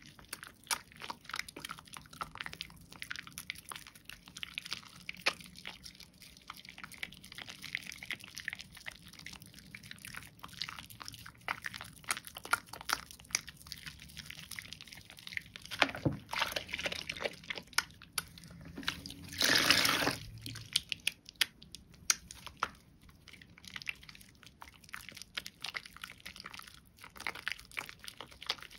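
Soaked, mushy bar soap being lathered into thick wet foam: a dense run of small wet clicks and crackles, with one louder rush of noise lasting over a second a little past the middle.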